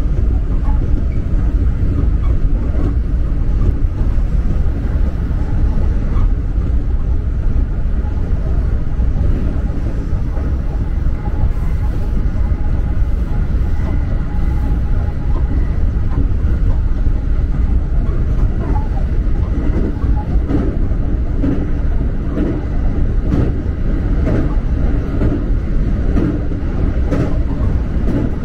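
Electric commuter train running along the line, heard from inside the front car: a loud, steady rumble of wheels on rail with a faint steady whine above it. A few sharp clicks of the wheels over rail joints come near the end.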